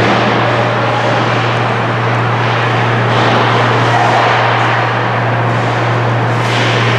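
Steady ice-arena ambience during hockey play: a constant low hum under a dense, even wash of noise, with a brief sharper hiss near the end.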